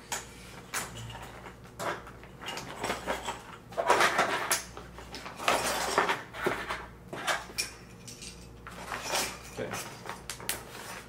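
Clear plastic zip-lock bag crinkling and rustling as it is handled and closed, with small hard plastic pieces clicking against each other and the table now and then.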